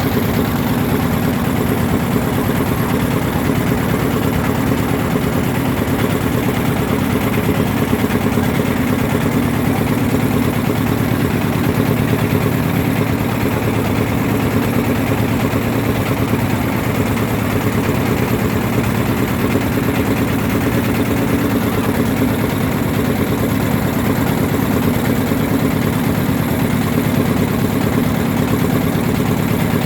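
Boat engine running steadily, an even drone that does not change in speed.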